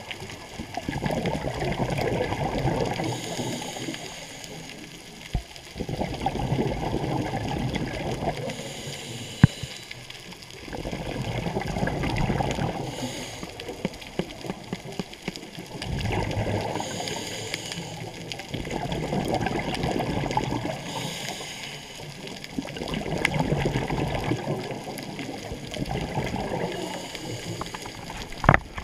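Scuba diver breathing through a regulator underwater: about every five seconds a bubbly rush of exhaled air, with a thin hiss of inhaling between them, and a couple of sharp clicks.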